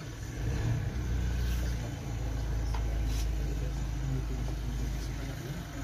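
A steady low rumble with a few faint clicks, and no clear speech.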